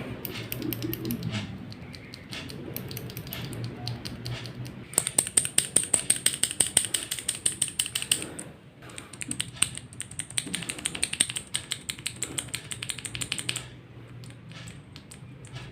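Outemu Blue clicky mechanical keyboard switches, one lubed with Super Lube and one stock, pressed rapidly by hand for comparison. Runs of sharp clicks, several a second, heaviest from about five to eight seconds in and again from about nine to thirteen seconds in.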